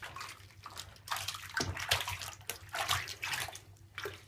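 Water splashing and sloshing in a tub as a cat is washed and rinsed by hand, in uneven swishes.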